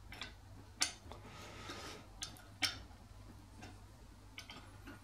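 Steel ring spanner clicking and scraping against the bolt heads of a cast-iron ratchet-housing cover as the cover bolts are done up: two sharp metallic clicks, about a second in and again near the middle, with a soft scrape between and a few lighter taps.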